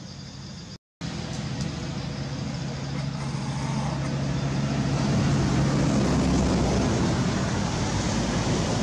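A motor vehicle's engine hum with traffic-like noise, growing louder over several seconds, after the sound drops out completely for a moment about a second in.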